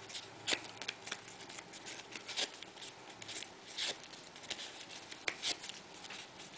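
Cardstock poinsettia petals rustling and crinkling as they are handled and curled by hand: an irregular scatter of short, soft crackles.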